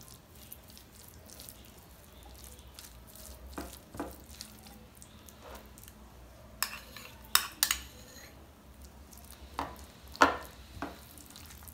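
A metal spoon stirring a shredded chicken and mayonnaise filling in a glass bowl: soft scraping with scattered clinks of the spoon against the glass, the sharpest a little past halfway and again near the end.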